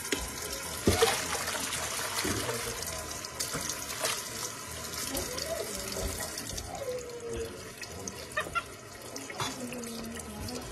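Kitchen faucet running a thin stream of water that splashes onto a plastic colander and into a stainless steel pot of water in the sink. A few short knocks sound over it, the loudest about a second in.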